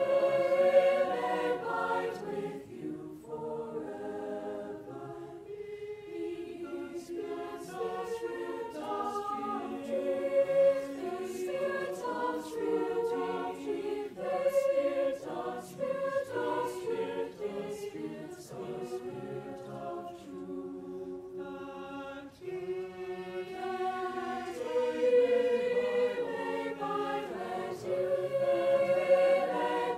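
Mixed-voice high-school choir singing in parts, with held chords that swell and fade with each phrase.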